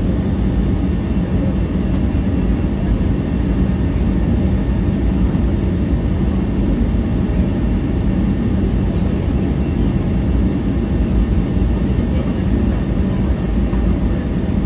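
Steady cabin noise of an Airbus A320neo with Pratt & Whitney geared turbofan engines in flight: a loud, even rumble of engines and airflow with a steady low hum running through it, heard from inside the cabin.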